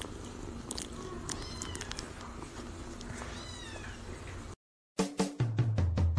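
A kitten meowing twice in short, high cries that arch up and down. About four and a half seconds in the sound cuts off and music with a heavy beat starts.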